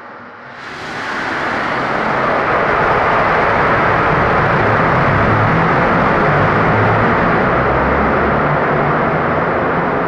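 Pelton hydraulic turbine starting up. About half a second in, a rushing noise swells over a couple of seconds into a loud, steady din, with a low hum underneath: the water jets striking the runner's buckets as it comes up to speed.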